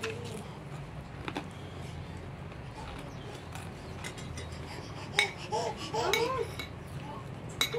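A metal spoon clinking against a plate a few times as food is scooped up, with a short stretch of voice about two-thirds of the way in.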